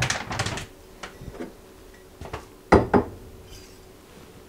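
Paper bag of dried chamomile rustling as it is handled on a countertop, then a few light clicks and two sharp knocks, about a quarter second apart and some three seconds in, of things put down on the counter.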